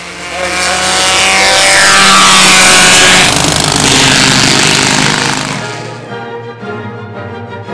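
A group of vintage racing cars passing close on a wet track, their engines swelling to a loud peak and dropping in pitch as they go by, with tyre spray hissing. Music begins about six seconds in.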